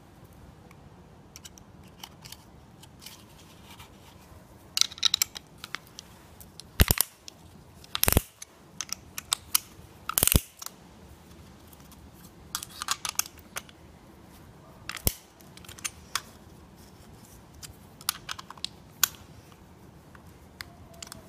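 Piston ring compressor being fitted over a piston and tightened with its key: short runs of quick metallic clicks, with a few sharper single knocks of metal parts.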